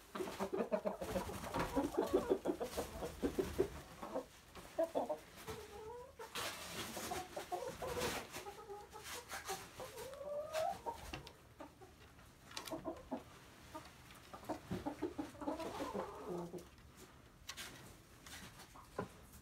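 Hens and a rooster clucking: a dense run of rapid clucks at the start and again in the second half, with a few drawn-out calls that bend up and down in pitch in between.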